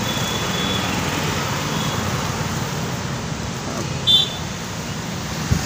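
Steady roadside traffic noise, with one short high-pitched sound about four seconds in.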